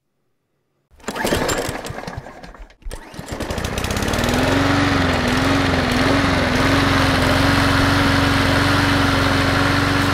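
Kohler 7000 series V-twin mower engine cranking over for about two seconds, then firing and picking up to a steady, even run.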